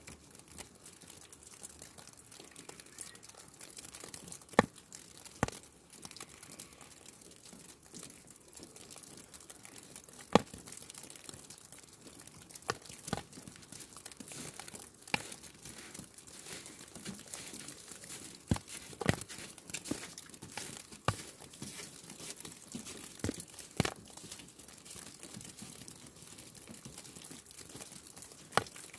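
Falling snow: a steady soft crackling hiss, with scattered sharp ticks and taps of snow landing, the loudest a little after four seconds and near ten seconds.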